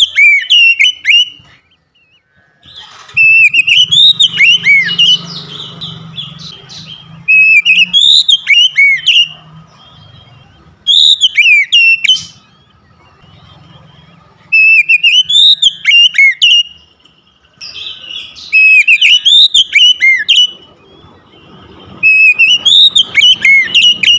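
Male oriental magpie-robin singing loud, whistled phrases of rising and falling notes, seven phrases repeated every three to four seconds with short pauses between: the caged bird in full song.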